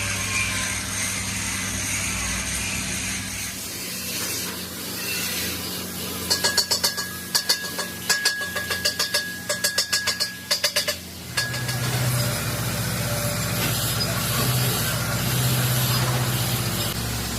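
Workshop sounds: a steady mechanical hum, with a quick run of sharp metallic clicks or knocks, two or three a second, for about five seconds in the middle.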